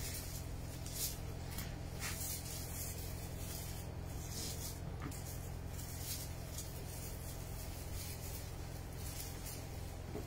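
Tomato plants rustling as ripe fruit is picked by hand, irregular brief rustles over a steady low hum.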